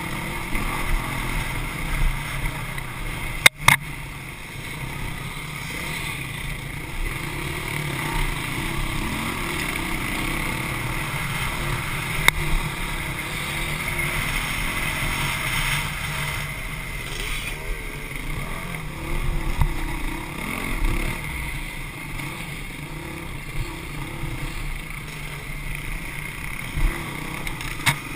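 Dirt bike engine (a Honda CRF450X four-stroke single) running under load over rough trail, its pitch rising and falling as the throttle opens and closes, with wind on the helmet-mounted microphone. A sharp knock comes about three and a half seconds in, and a smaller snap comes near the middle.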